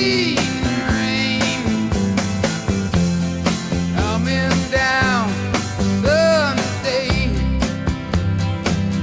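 Background music with a steady beat and a gliding melody line.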